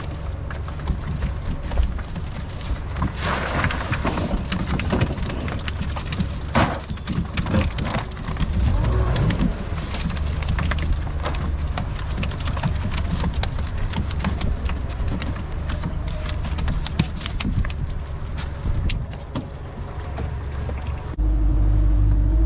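Low wind rumble on the microphone over open water, with scattered splashes and knocks as a cast net is thrown and hauled back aboard a small boat. Just before the end a boat motor comes in with a steady, louder hum.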